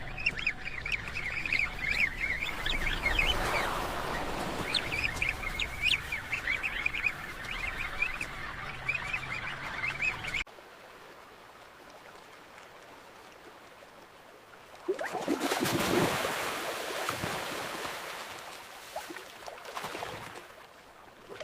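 A penguin colony calling: many birds chattering and squawking at once for about ten seconds, then cut off abruptly to a low hiss. About fifteen seconds in, a loud rush of water swells up and slowly fades.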